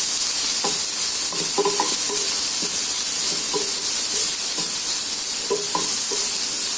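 Chopped cabbage, garlic and green chillies sizzling in oil in a nonstick frying pan over a low gas flame, stirred with a wooden spatula. The steady sizzle runs under short scraping strokes about once a second.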